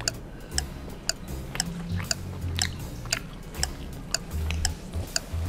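Light background music with a steady ticking beat, about three ticks a second, over low bass notes, and a person chewing a mouthful of beef from soup.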